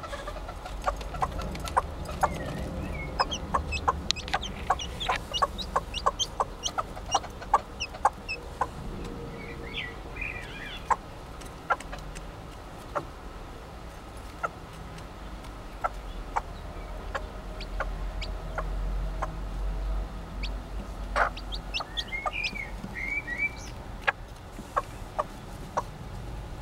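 Serama hen clucking in short repeated clucks, with a few higher chick cheeps about ten seconds in and again near the end.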